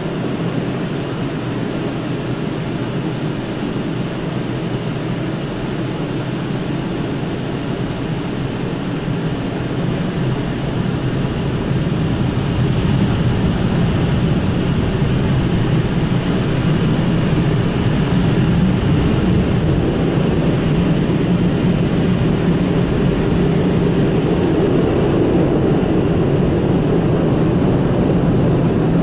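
Automatic car wash machine running: a steady noise that grows louder about twelve seconds in.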